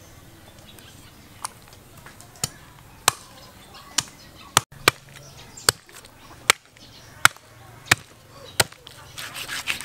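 Heavy cleaver chopping through a raw pig's leg on a round wooden chopping block: about a dozen sharp chops, roughly one every 0.7 s, starting about a second and a half in, with a brief spell of scraping near the end.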